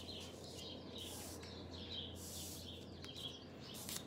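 Small birds chirping repeatedly in the background, with a couple of soft rustles of paper cards being moved on a cloth-covered table.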